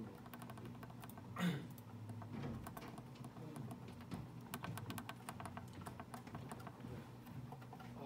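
Quick, uneven runs of small key clicks over a low steady hum, with one louder short sound about a second and a half in.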